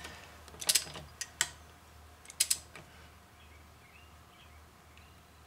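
Powerbuilt click-type torque wrench, set to 100 ft-lb, tightening a wheel lug nut. Several sharp metallic clicks in the first three seconds, some in close pairs, as the ratchet works and the wrench clicks over at its set torque.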